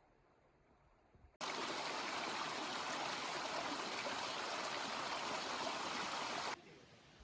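Mountain stream water rushing over rocks, a steady, dense wash that starts abruptly about a second and a half in and cuts off just as abruptly near the end, leaving a much fainter hiss.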